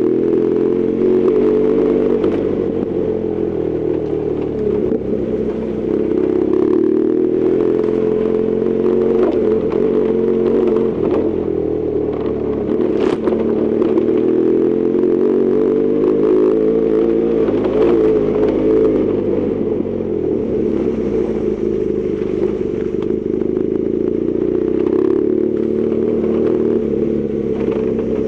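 BMW R1200GS Adventure's flat-twin boxer engine under way, its pitch rising and falling repeatedly as the throttle is opened and closed, with scattered clatter of gravel under the tyres on an unpaved forest road.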